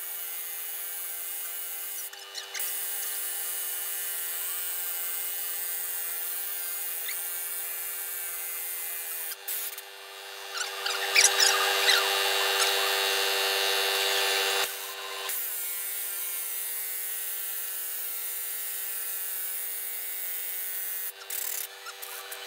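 Pneumatic impact wrench running on the threaded rod of a sleeve installer, driving a cylinder repair sleeve down into an engine block bore. It runs in long stretches with a steady whine and stops briefly a few times. It gets louder and harsher for a few seconds in the middle as the tight-fitting sleeve is forced in, which is extremely hard to push.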